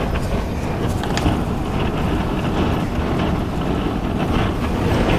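Severe storm wind, about 50 to 70 mph, blowing steadily and buffeting the microphone through an open front door.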